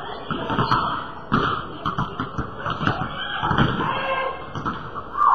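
Basketball bouncing on a hardwood gym floor: a string of irregular thuds over a steady background hum of the gym.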